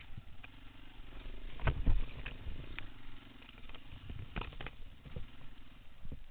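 Single-cylinder four-stroke dirt bike engine running at low speed on a rough trail. Knocks and rattles from the bike come over it, loudest a little under two seconds in and again around four and a half seconds in.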